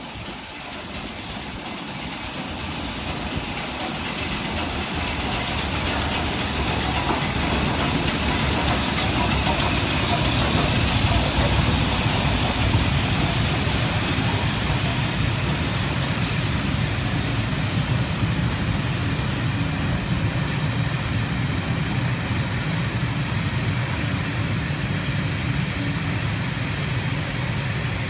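LMS Royal Scot class three-cylinder 4-6-0 steam locomotive 46100 approaching and passing, growing louder to a peak with a hiss of steam about ten to twelve seconds in. Then the rumble of its train of coaches running past on the rails.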